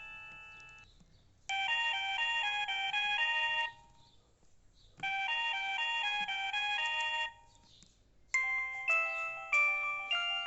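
Samsung SGH-E746 mobile phone ringtones playing. A fast, bright electronic melody about two seconds long plays twice, with a short pause between. Near the end a different, chiming melody of ringing, decaying notes starts.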